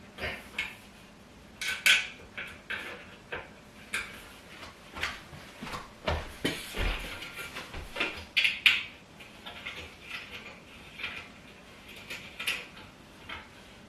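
Irregular clinks, clatters and knocks of metal hardware and furniture parts being handled during dining-table assembly, with louder knocks about two seconds in and again about eight and a half seconds in.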